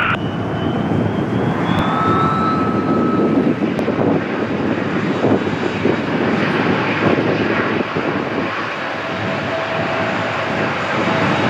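Jet airliner engine noise at close range: a steady rush of sound, with a faint whine rising in pitch over the first couple of seconds.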